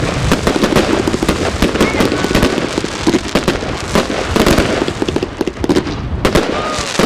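VDN Fireworks 'Grada' firework firing shots in quick succession: a dense, unbroken run of bangs and pops as shells launch and burst.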